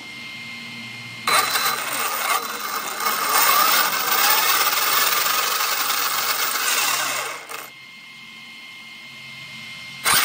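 Hobbystar 4092 1730 kV brushless motor on 6S running the RC truck's drivetrain and wheels under throttle, with a mechanical whir. It starts abruptly about a second in, wavers in pitch with the throttle, and winds down after about six seconds. A sharp click comes near the end.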